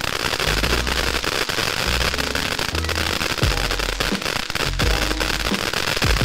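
TNT "Bomb Pop" ground fountain firework spraying, a loud steady hiss thick with fast crackling from its crackling stars.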